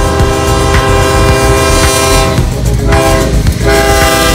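CSX freight diesel locomotive's multi-chime air horn sounding a long held chord as the train passes close by; the chord wavers and dips in pitch about two and a half seconds in as the locomotive goes past. Underneath, the locomotive's engine rumbles and the wheels click over the rail joints about once a second.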